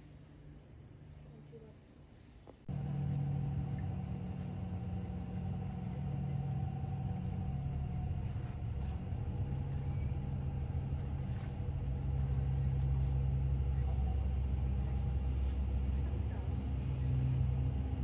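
Steady high trilling of insects. About three seconds in, a steady low machine hum cuts in and becomes the loudest sound.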